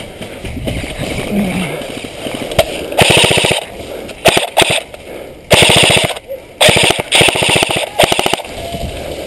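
Airsoft guns firing five short full-auto bursts, each a rapid even rattle lasting under a second.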